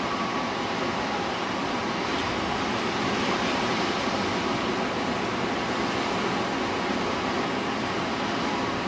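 Steady rushing noise with no distinct calls or knocks.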